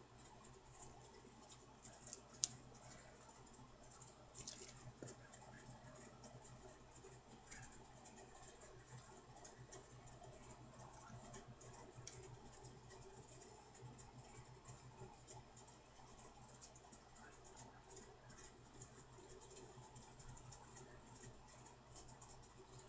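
Quiet room tone with a steady low hum and hiss, faint rustling and handling noises, and one sharp click about two and a half seconds in.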